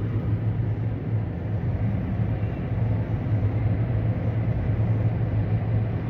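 Tractor engine running steadily with an even low drone.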